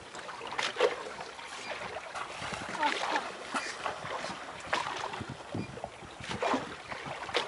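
Sea water slapping and splashing against the hull of a small boat, in uneven irregular splashes.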